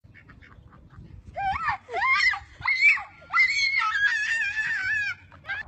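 High-pitched screaming: four shrill cries that rise and fall in pitch, the last lasting nearly two seconds and wavering.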